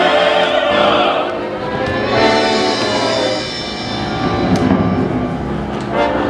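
Theatre orchestra music with voices singing over it.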